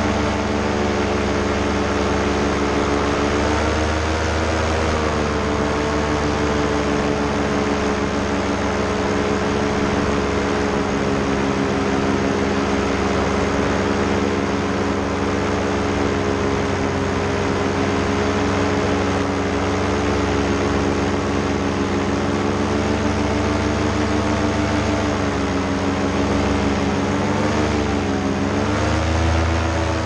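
Air Conception Nitro 200 paramotor's two-stroke engine and propeller running steadily in flight. The engine pitch dips and comes back up a few seconds in and again near the end, as the throttle is eased and reopened.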